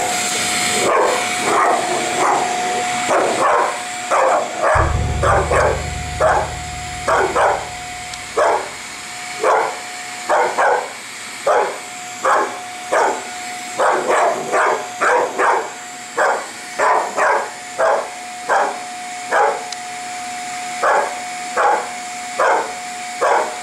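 A dog barking over and over at a running vacuum cleaner, short barks about one or two a second, some in quick pairs. Under the barks the vacuum's motor holds a steady whine with a hiss.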